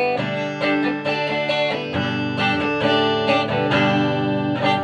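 Guitar strumming a rhythm part of repeated chords, played through a 1965 WEM Control ER15 valve amp head with push-pull EL84 output valves.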